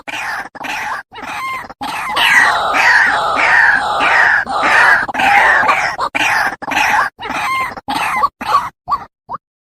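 White-breasted waterhen (dahuk) calling, a long run of short notes repeated over and over, loudest in the middle and breaking up near the end.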